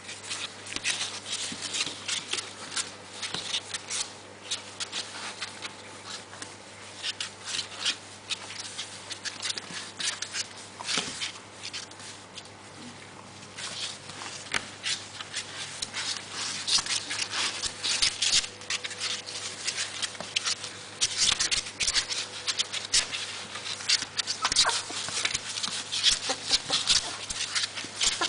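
Three-week-old puppies squeaking and whimpering in short, high, irregular cries as they move about together, with a steady low hum underneath.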